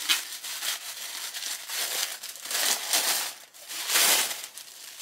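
Tissue paper crinkling and rustling as it is pulled and torn open from around a wrapped book, in uneven bursts, loudest about four seconds in.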